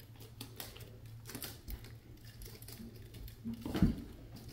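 Kittens playing: scattered, irregular light clicks and taps of paws and claws scrabbling on a hard surface, with one louder thump just before the end.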